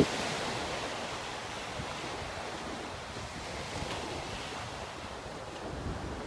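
Small waves breaking and washing up the beach: a steady rush of surf, with a little wind on the microphone.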